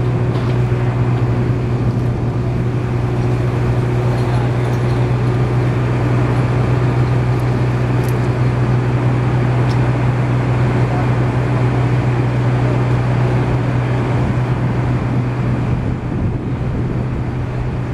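An engine running steadily at a constant speed: a loud, even hum.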